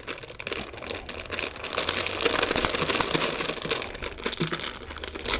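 Thin plastic fruit-snack pouch crinkling and crackling as it is handled and shaken open, louder in the middle.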